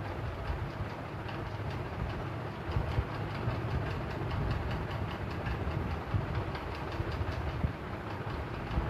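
Ceiling fan running, a steady whir with a fast, regular clicking rattle in each turn.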